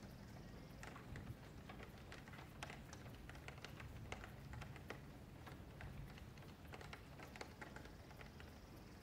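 Faint, irregular clicking of a computer keyboard and mouse over a low steady hum.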